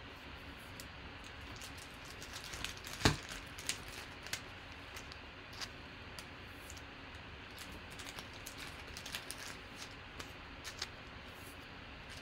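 Faint scattered clicks and light rustles of small objects being handled, with one sharper click about three seconds in, over a low steady hiss.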